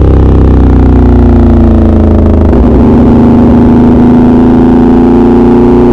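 Motorcycle engine through an SC Project aftermarket exhaust while riding. The engine note falls over the first couple of seconds as the bike slows, then holds steady and climbs slightly near the end.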